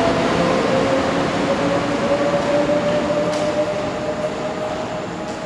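Daewoo EMU500 electric multiple unit accelerating away from the platform: a steady whine slowly rising in pitch over the rumble of wheels on rail, fading as the train draws off, with a couple of faint clicks.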